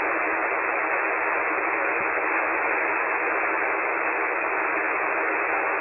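Steady hiss of HF band static from a KiwiSDR receiver in lower-sideband mode on 40 metres at 7197 kHz, heard as an open channel between transmissions with no voice on it.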